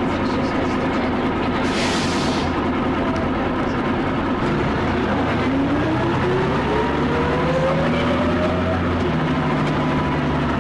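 Leyland double-decker bus with a Cummins L10 engine and ZF gearbox, running. There is a short air hiss about two seconds in. A whine then rises steadily in pitch for a few seconds as the bus accelerates, and the engine note changes near the end.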